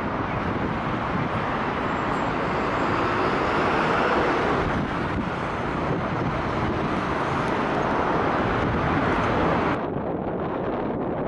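Steady city traffic noise with wind on the microphone. About ten seconds in it cuts abruptly to a duller, thinner-sounding ambience.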